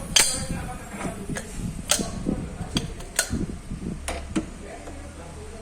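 Sharp metallic clicks and knocks, about half a dozen at irregular intervals, from starter motor parts being handled and fitted together during reassembly.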